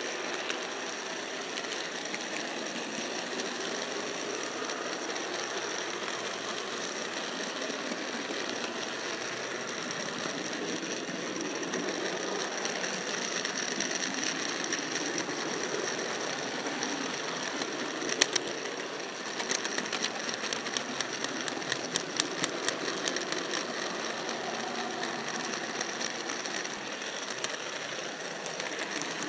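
Model train running along the track: a steady mechanical rattle and whine of the motor, gears and wheels, with a run of sharp clicks about two-thirds of the way through as the wheels cross rail joints.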